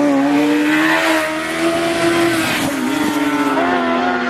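Motorcycle engine held at high revs as the bike rides past, its pitch steady, then dipping briefly about two and a half seconds in and sinking slowly toward the end.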